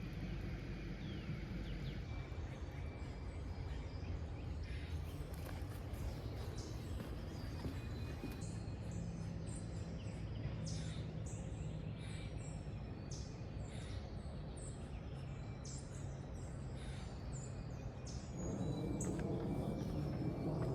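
Birds chirping over a steady low background rumble, the chirps becoming frequent about halfway through; the rumble grows louder near the end.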